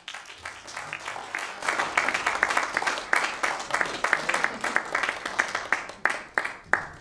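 Congregation applauding. The clapping swells over the first couple of seconds, holds, then thins out to a few last sharp claps near the end.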